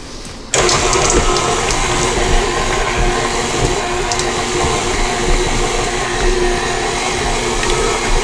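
KitchenAid Artisan stand mixer switched on about half a second in, then running steadily on its lowest stir speed with a steady motor hum. Its flat beater is turning through stiff cookie dough in a steel bowl, mixing in the chips.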